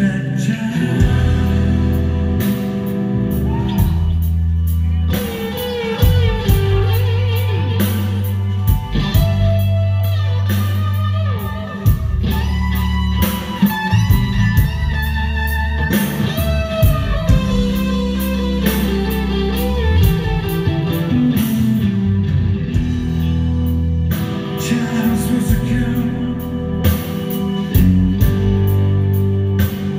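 Live rock band playing an instrumental passage of a song: steady drum hits and bass under a wavering lead melody line.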